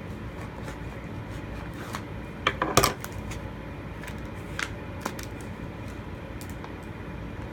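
Packaging being worked open with a knife: scattered clicks and crackles, with the loudest cluster about two and a half to three seconds in.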